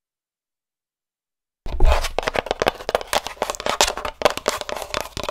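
Dead silence for nearly two seconds, then a bump on the microphone and fast, irregular fingernail tapping and scratching on a condenser microphone, up close as an ASMR trigger.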